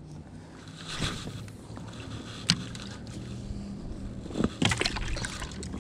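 Boat motor running as a low steady hum that comes in about two and a half seconds in, with a few short knocks.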